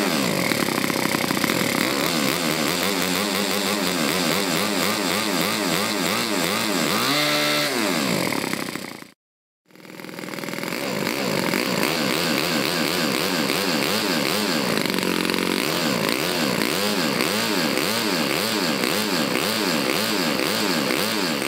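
OS FS-40s four-stroke glow model engine, bored out and tuned, running at high speed on a dyno test stand. The sound cuts out briefly about nine seconds in, then the engine is heard running again.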